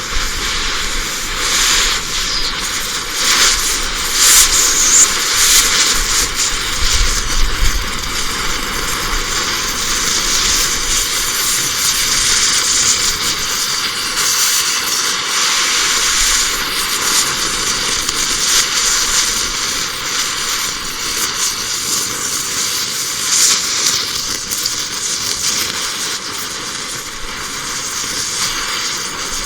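Gas cutting torch burning with a steady hiss, crackling now and then as it cuts through thick steel.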